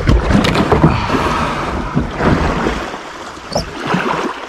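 Water splashing and rushing close to the microphone, with wind buffeting it and irregular knocks, starting suddenly just before and continuing throughout.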